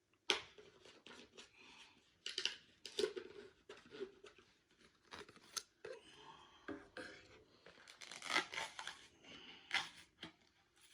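Pre-workout powder tub being opened by hand: a run of irregular tearing, scraping and plastic clicks as the lid and inner seal come off.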